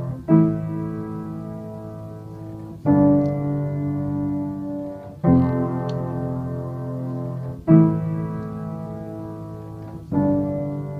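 Piano playing a slow run of held chords. A new chord is struck about every two and a half seconds, five in all, each left to ring and fade.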